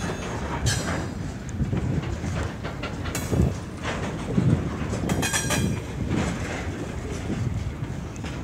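Freight wagons (tank cars and covered hoppers) rolling past during shunting, wheels knocking over rail joints with a steady rumble. Brief high squeals break in three times, the longest and loudest a little past halfway.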